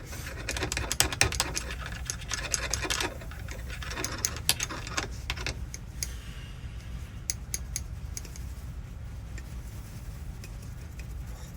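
A rusty, freshly lubricated door lock cylinder from a Ford E150 being worked hard, with rapid metallic clicking and rattling that comes in two dense runs and then thins to scattered clicks.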